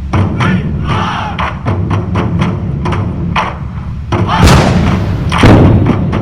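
Background music: a percussion-heavy track with a steady beat of drum hits over a low, sustained bed, and two louder hits in the second half.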